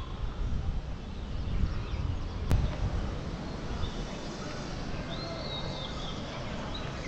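Wind rumbling on the microphone, easing after the first few seconds, with birds chirping in the surrounding trees. A single sharp click comes about two and a half seconds in.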